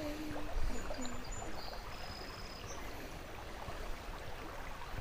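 Steady hiss of a shallow stream running over gravel, with a few faint, short high chirps in the first half.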